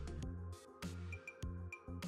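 Quiet background music: low held notes with a few light, high pings.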